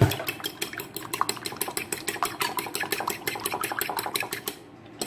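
A fork beating eggs and milk in a bowl, its tines clicking against the bowl fast and evenly, with a louder knock at the start and a short pause near the end.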